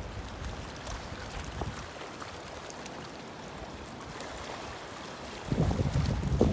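Wind and lapping water make a steady hiss, and gusts of strong wind start buffeting the microphone with a low rumble about five and a half seconds in.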